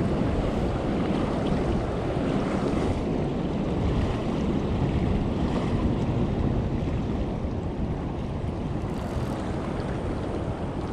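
Fast river current rushing steadily below a dam, with wind buffeting the microphone.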